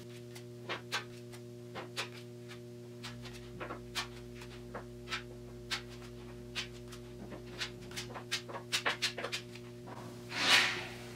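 Plastic body-filler spreader clicking and scraping as green fiberglass filler is worked and spread onto a car's roof panel, with a louder scrape about ten seconds in. A steady electrical hum runs underneath.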